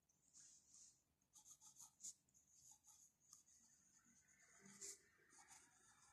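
Faint scratching of a metal pen nib on lined notebook paper: a quick series of short strokes as cursive letters are written.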